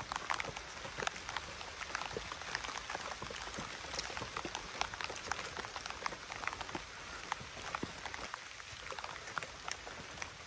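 Footsteps through fallen leaves on a forest path: an irregular patter of many small crackling clicks.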